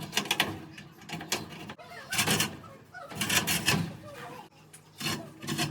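Utility blade scraping and cutting the old glued-on felt drum seal away from a dryer drum, in a series of short, irregular scraping strokes.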